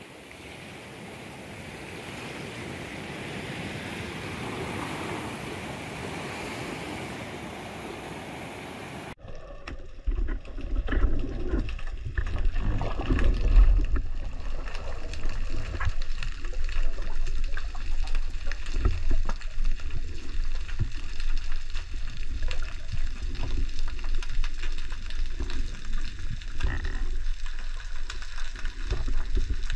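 Seawater washing through a rocky tide pool, a steady hiss that slowly swells, then a sudden switch about nine seconds in to underwater sound picked up by a camera in its housing: a muffled low rumble of moving water with scattered clicks and crackles.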